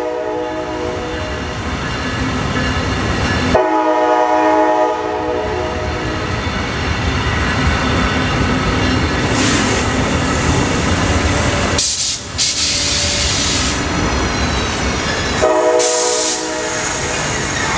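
Brightline passenger train passing on the tracks: a steady rumble of wheels on rail, with the Siemens Charger locomotive's horn sounding three times, briefly right at the start, for about a second and a half about four seconds in, and again near the end. A brief high-pitched squeal comes in about twelve seconds in.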